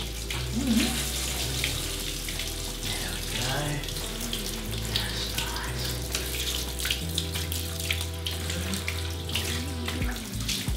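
Water running steadily from a handheld shower hose, spraying over a dog's coat and into a bathtub.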